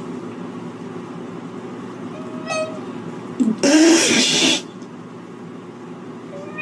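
Cat sounds over a steady low hum: a short, flat cry about two and a half seconds in, then a loud, harsh noisy cry lasting about a second.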